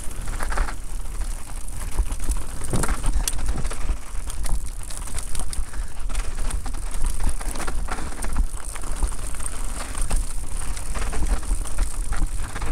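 Electric mountain bike riding fast down a rough trail: a steady rumble of wind on the microphone under a constant rattle of clicks and knocks from the tyres and bike over dirt and stones.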